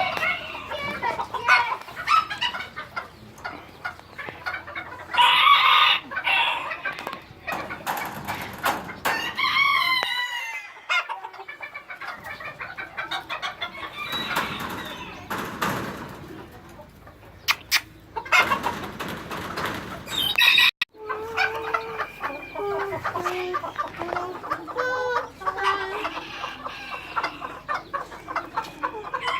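A flock of chickens clucking, with a rooster crowing now and then.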